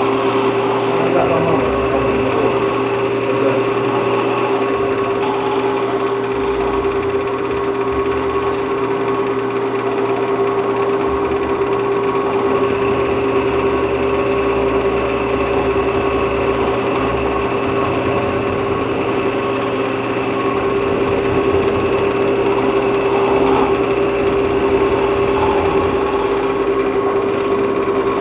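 Wood lathe running with a steady hum while a hand-held turning tool cuts the spinning wood, giving a continuous rough cutting noise.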